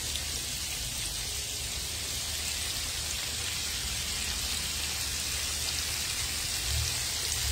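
Chicken pieces frying in a pan of hot oil: a steady sizzle, with a low hum underneath.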